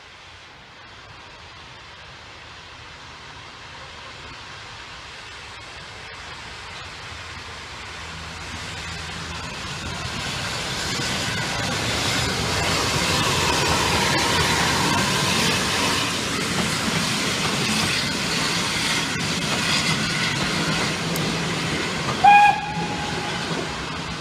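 Austerity 0-6-0 saddle tank steam locomotive working a coach train as it approaches and passes, its exhaust and wheels growing steadily louder to a peak a little past the middle, then the coaches rolling by with steam hissing. A short, loud whistle blast near the end.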